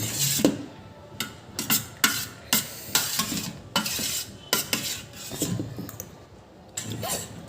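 Cutlery clinking and scraping against a bowl while instant noodles are eaten: a string of short, irregular clinks.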